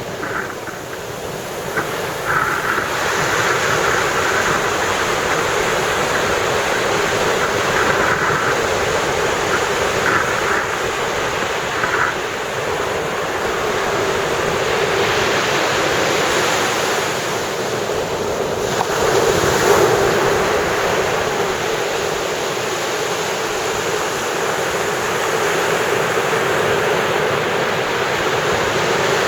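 Ocean surf breaking and washing up the beach in a steady rush, with one wave louder about two-thirds of the way through.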